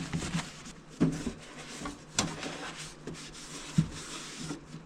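A few light knocks and clicks of hard objects being handled, spaced about a second apart, with a faint rustle between them.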